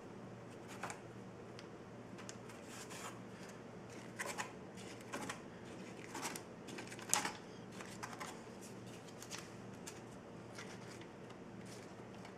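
Scraping and rubbing of a paper-wrapped business card smearing clear silicone over a wooden panel: a run of short irregular strokes, the loudest about seven seconds in.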